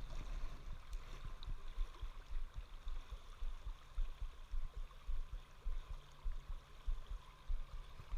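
Moving river water hissing steadily, under an uneven low rumble of wind gusting on the microphone, with a few faint ticks.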